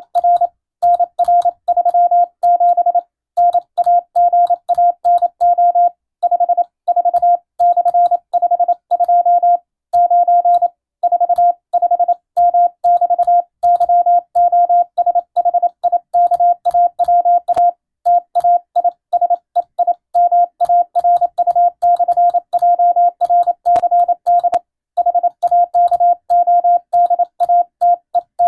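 Morse code (CW): a single steady mid-pitched tone keyed on and off in dots and dashes, sending a Latin-alphabet radiotelegram for receiving practice, with longer pauses between letters and words.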